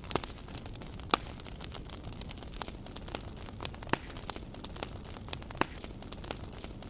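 Wood campfire crackling, with irregular sharp pops, the loudest about a second in and again near four and five and a half seconds in.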